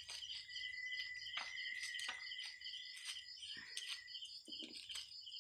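Crickets chirping in rapid, steady pulses with a thin high whine, and a few soft snaps as leaves are torn off their stems by hand.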